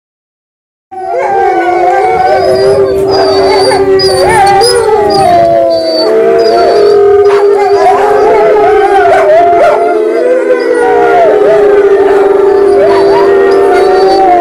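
A chorus of several wolves howling together, their long wavering howls overlapping at different pitches. It starts suddenly about a second in and keeps going.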